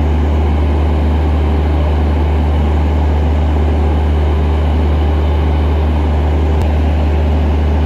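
Diesel engines of a standing Indian Railways train running steadily, a loud, constant low hum and drone.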